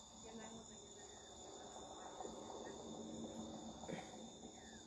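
Faint, steady chirring of crickets.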